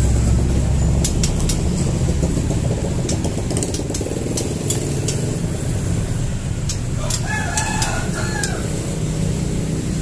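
A rooster crows once, about seven seconds in, the call lasting about a second and a half. Underneath is a steady low rumble with scattered faint clicks.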